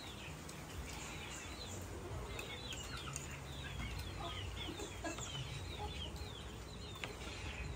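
Chickens clucking and chirping, many short falling calls one after another, over a low steady hum.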